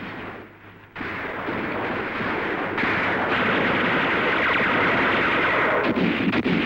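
Battle sound effect: a dense, continuous din of rapid gunfire and blasts that starts suddenly about a second in and grows louder.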